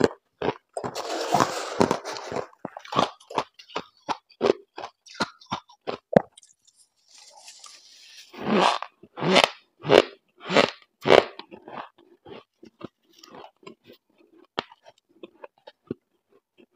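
A gloved hand scrapes powdery frost off the inside walls of a chest freezer, then the frost is bitten and chewed in rapid crunches. A run of loud crunches comes about halfway through, and softer chewing follows.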